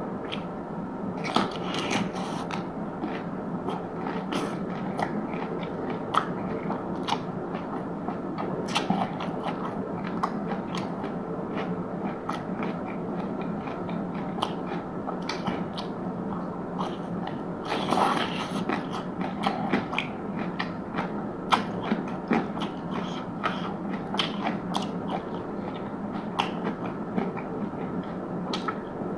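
Close-miked chewing and biting, with frequent short crunches and smacks scattered through and a busier burst of crunching about two-thirds of the way in, over a steady background hum.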